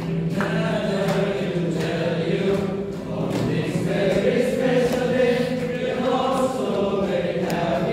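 A group of people singing together, with a steady low note held underneath the voices.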